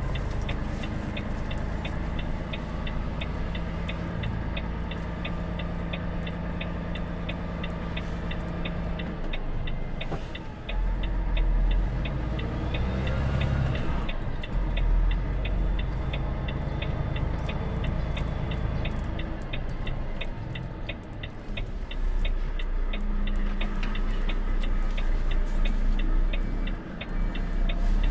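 Volvo truck's diesel engine running, heard from inside the cab as the truck drives slowly, with a steady fast ticking over it. The engine grows louder from about ten seconds in.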